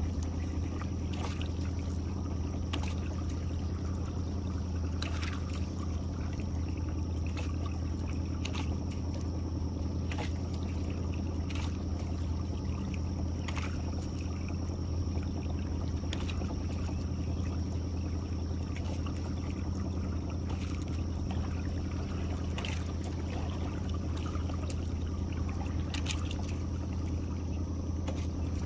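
A boat's outboard motor idling with a steady low hum, with light ticks and trickling water every second or two from the wet trotline coming over the side of the boat.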